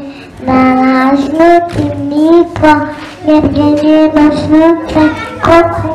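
A young boy singing a simple song into a handheld microphone, in short phrases of held notes, starting about half a second in.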